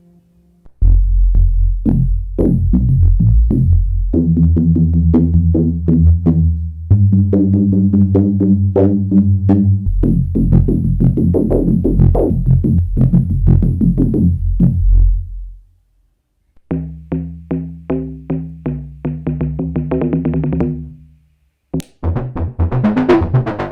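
Arturia MicroFreak synthesizer playing factory presets: sequenced, pulsing bass and pitched notes with a drum-machine feel. The pattern stops about 15 seconds in, a new sound starts about two seconds later, and another begins near the end as presets change.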